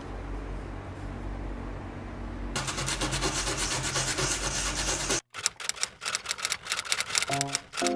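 Edge of a cast resin comb rubbed back and forth on sandpaper, a scratchy rasping that grows denser and louder about two and a half seconds in, then stops suddenly. Near the end, light music with clicking percussion and plucked notes starts.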